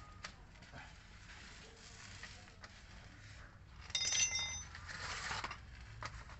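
Metal hand tools clinking, with one short ringing clink about four seconds in and a brief scrape or rummage right after.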